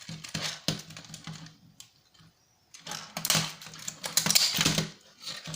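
Brittle plastic of a quadcopter drone's body cracking and snapping as it is torn apart with pliers: a run of sharp clicks and crackles, a short pause about two seconds in, then a louder, denser spell of cracking.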